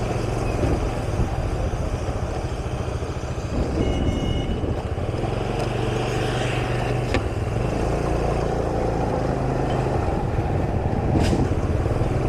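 City street traffic: motor vehicle engines running steadily, with a short two-tone beep about four seconds in.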